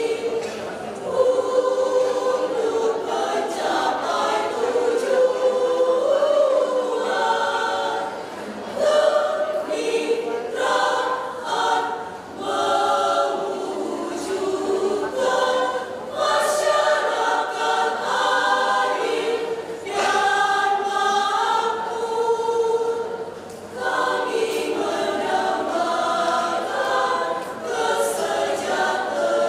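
A women's choir singing a song in phrases, with brief breaths between lines.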